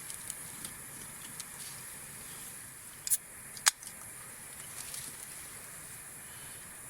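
Campfire crackling: a steady faint hiss with scattered small pops, and two sharp pops about three seconds in.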